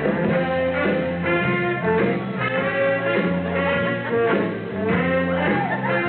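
Music with brass instruments playing, in a jazzy style.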